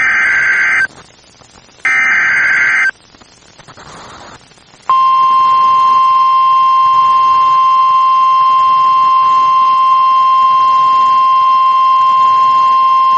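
NOAA Weather Radio Emergency Alert System (SAME) header: two loud one-second bursts of buzzing digital data tones, about two seconds apart. About five seconds in, the steady single-pitch warning alarm tone starts and holds, the signal that a warning, here a severe thunderstorm warning, is about to be read.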